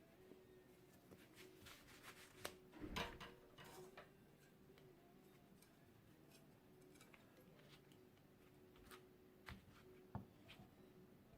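Near silence with a few faint clicks and knocks: a small cluster about three seconds in and a couple more near the end.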